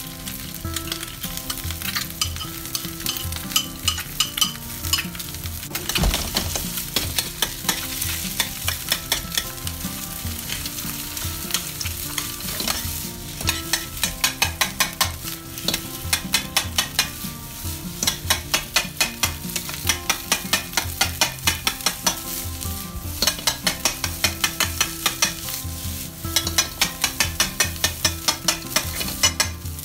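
Rice and egg sizzling in a hot frying pan while a spatula stirs and chops through them. Several times, and most of all in the second half, there are runs of quick strikes of the spatula against the pan, about two or three a second.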